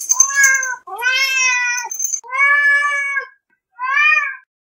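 Domestic cat meowing four times, long drawn-out calls with short gaps between them; the last is the shortest.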